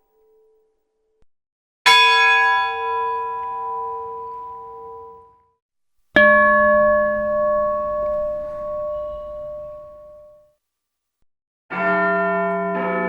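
A large bell struck once and ringing out, fading over about four seconds, then a second, lower-pitched bell struck once and fading the same way. Near the end several bells start ringing together in a rapid run of overlapping strikes, like a peal.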